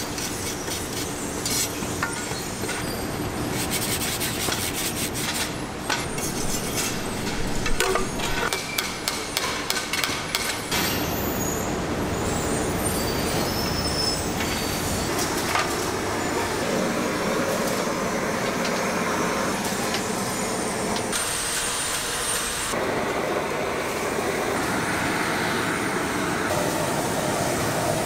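Aluminium frying pans being scraped and knocked by hand with a wire brush: a quick run of scratches and clicks. From about eleven seconds in, this gives way to a steady mechanical noise of pan-production machinery running.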